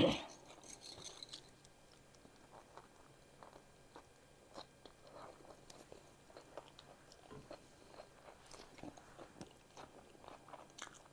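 Close-miked eating sounds: a loud bite into a cheddar hot link sandwich at the very start, then quiet, steady chewing with faint wet clicks and smacks.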